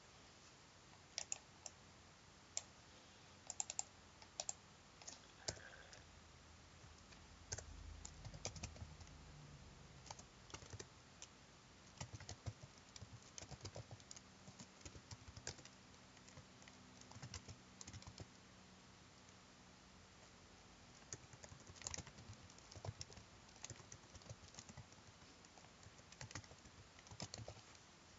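Computer keyboard typing: faint, irregular keystrokes in short runs with brief pauses between.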